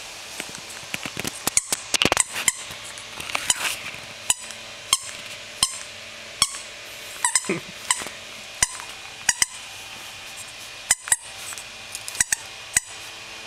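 A squeaky soft toy being bitten by a Pembroke Welsh corgi, giving short, sharp squeaks again and again at an uneven pace, sometimes in quick pairs.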